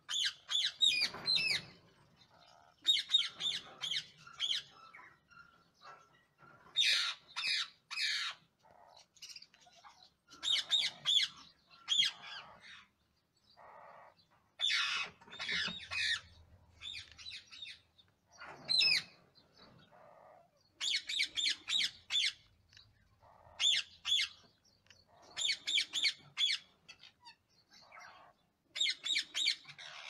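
Rose-ringed parakeets calling in quick bursts of short, rapid, high notes, a cluster every second or two.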